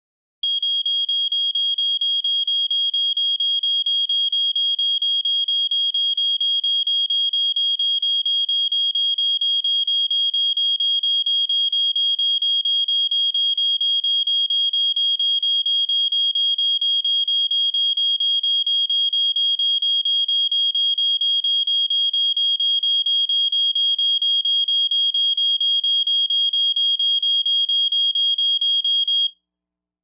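Smoke detector alarm sounding: a shrill, high-pitched beep repeated rapidly and evenly at one pitch, cutting off suddenly near the end.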